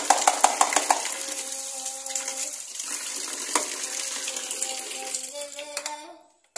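Running water pouring and splashing into a plastic basin, with a few sharp knocks in the first second as a plastic washing-machine part is rinsed in it. The water sound stops abruptly about six seconds in.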